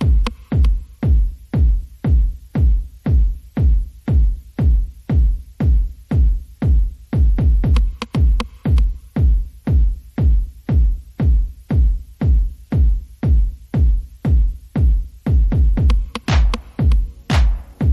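Electronic background music with a steady, heavy kick-drum beat, about two beats a second.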